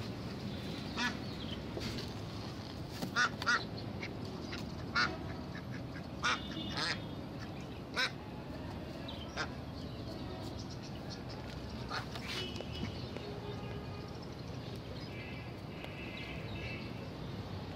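Domestic ducks quacking in short calls every second or two, loudest in the first half, over a steady background hubbub.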